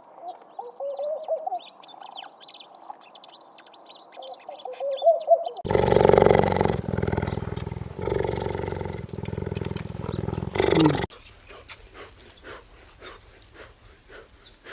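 A series of animal calls: short chirping calls first, then a loud animal roar lasting about five seconds from about six seconds in, ending in a falling tone, then rapid quiet clicking.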